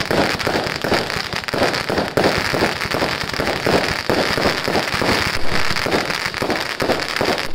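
Fireworks going off in rapid succession: a dense, unbroken run of pops and crackles.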